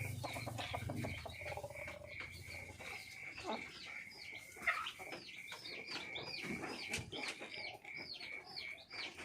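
Chickens calling in their coop: many short, high chirps that fall in pitch, coming a few a second and thickest in the second half, over a steady high pulsing note.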